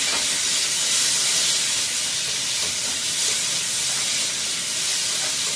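Food frying in a wok over a gas flame, a steady, loud sizzle as it is stirred with a spatula.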